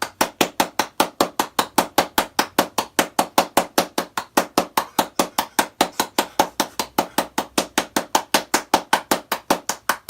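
Rapid, even knocking, about six to seven sharp strikes a second without a break.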